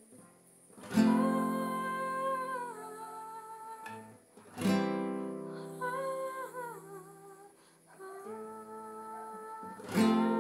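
Music: an acoustic guitar strums a chord three times, about four to five seconds apart, each chord left to ring. A voice hums a slow, wavering melody over it.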